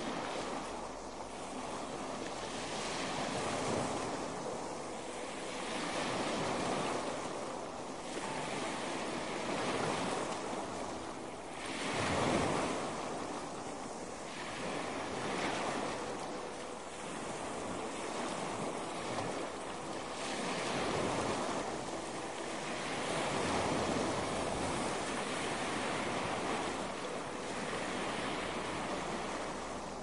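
Ocean waves breaking and washing up a shore, swelling and receding every few seconds, with one stronger wave about twelve seconds in.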